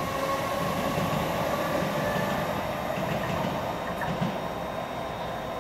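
c2c Class 357 Electrostar electric train pulling away and fading into the distance, its whine at a few steady pitches dying down over the first few seconds. Wind rumbles on the microphone.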